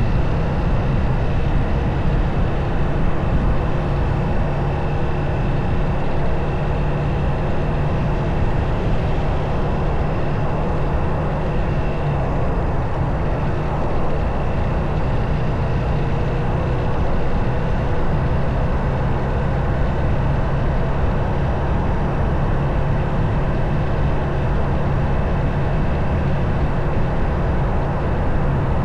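Motorcycle engine running at a steady cruise, mixed with wind and road noise on the helmet- or bike-mounted camera's microphone.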